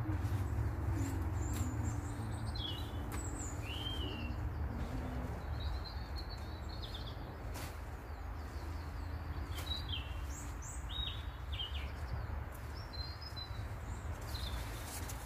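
Small birds chirping and calling in short scattered phrases, over a steady low rumble.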